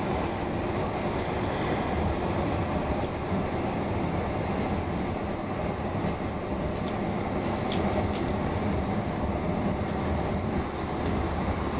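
Running noise of a Roslagsbanan X10p narrow-gauge electric train heard from inside the car while under way: a steady rumble of wheels on rail, with a few light clicks in the second half and a brief high tone about eight seconds in.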